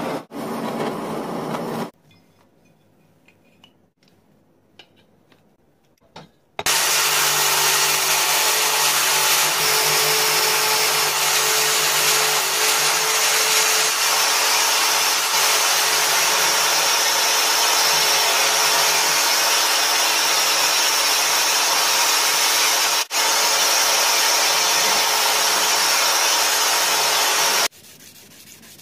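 A gas blowtorch flame hissing for about two seconds. After a few quiet seconds, an angle grinder runs steadily for about twenty seconds with a brass strip held to its abrasive disc to true the strip's edges, with a brief dip near the end. It ends with the quieter scrape of brass being rubbed by hand on fine (800-grit) sandpaper.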